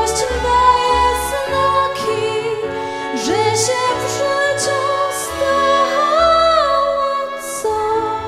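Small live dance band of clarinet, violin, accordion, piano, double bass and flute playing an instrumental tango passage. Low bass notes sit under a melody with slides and vibrato.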